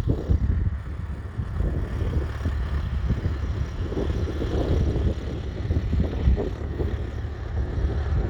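Ferguson TEF20's 2.1-litre four-cylinder diesel engine running, heard with heavy wind buffeting on the microphone.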